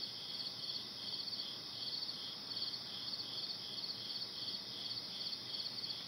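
Crickets chirping steadily in a high, pulsing chorus.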